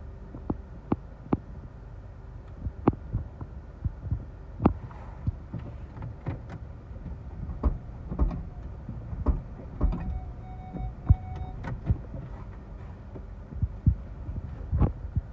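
Scattered raindrops tapping irregularly on the car's windshield and roof, over a low rumble inside the car.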